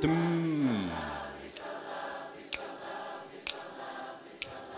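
A theatre audience of hundreds singing a simple three-part vocal harmony on its own as an amateur choir, soft and blended, with sharp clicks about once a second keeping the beat.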